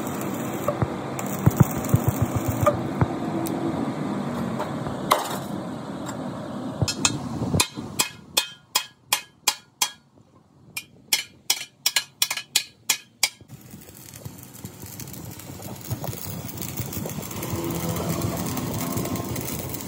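Stick (arc) welding crackle on a steel truck axle housing, then two runs of hammer blows on the welded housing, about three strikes a second, from about a third of the way in to about two-thirds in. The welding crackle returns near the end.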